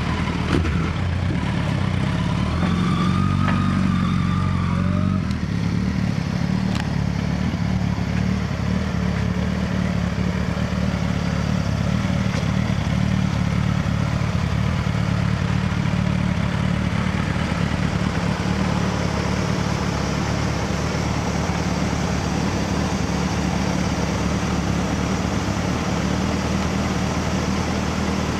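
Suzuki GSX1300R Hayabusa's inline four-cylinder engine running at low revs through a Yoshimura exhaust, a steady low note with a brief change in engine pitch a few seconds in.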